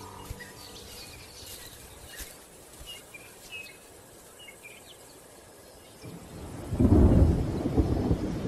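Faint bird chirps over quiet bush, then about six seconds in a deep rumble of thunder builds and is loud from about seven seconds on.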